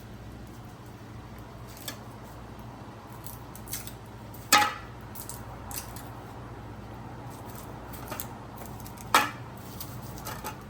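Kitchen utensils clinking against cookware: a few separate sharp clinks, two louder ones about halfway through and near the end, over a steady low hum.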